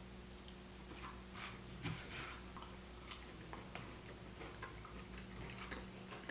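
Faint, irregular clicks and scrapes of a knife and fork cutting steak on a cutting board, over a low steady hum.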